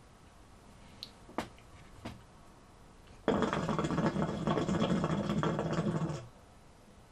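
A few faint clicks, then the water in a hookah base bubbling for about three seconds as a long pull is drawn through the hose; it starts and stops sharply.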